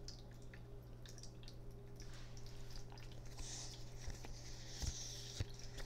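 Quiet room tone: a steady low hum with a few faint scattered clicks and a soft hiss in the second half.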